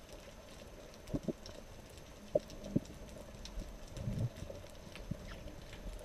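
Muffled underwater ambience picked up by a camera in a waterproof housing, with irregular soft knocks and faint scattered clicks over a low steady hum.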